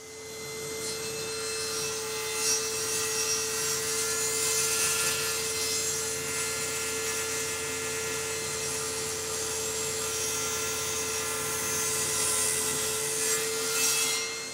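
Table saw running with a steady whine, its blade cutting a shallow recess into a birch plywood plate held flat over it. The sound builds over the first second, then holds steady.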